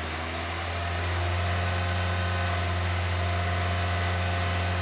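2001 Chevy Prism's Toyota 1.8L four-cylinder engine held at a raised RPM, the revs and loudness climbing a little in the first second and then holding steady. The engine is running very lean, a condition traced to restricted fuel injectors.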